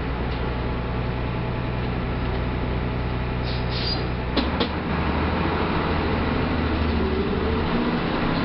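Mercedes-Benz OF 1318 bus diesel engine running under way, with a steady note. About halfway through a couple of short clicks come and the engine note drops lower, as in a gear change. Near the end the note rises again as the bus accelerates.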